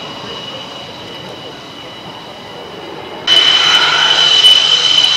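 MiG-29's twin Klimov RD-33 turbofan engines running at low power, a steady high-pitched turbine whine over a rushing noise. About three seconds in the sound jumps suddenly louder and brighter as the jet taxis close by.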